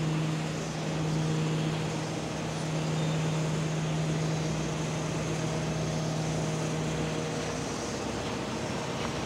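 A steady low machine hum over a broad wash of outdoor noise; the hum fades out about three-quarters of the way through while the noise continues.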